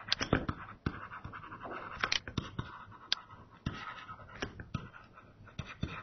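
Pen stylus writing on a tablet PC screen: irregular sharp taps and short scratches as the handwriting strokes are drawn.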